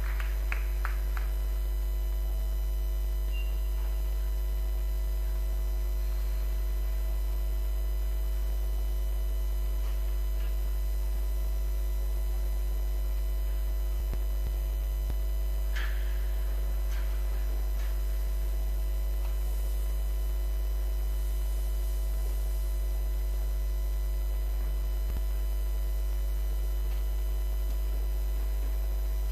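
Steady electrical mains hum: a constant low buzz with a ladder of steady overtones at an unchanging level. A brief faint sound comes about sixteen seconds in.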